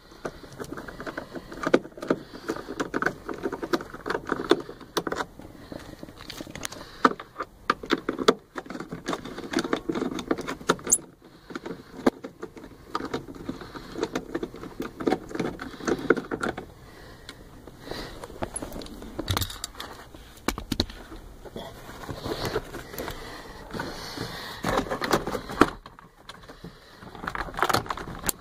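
Hands working loose and handling an interior trim panel and its fasteners: irregular small clicks, rattles and scraping that go on throughout.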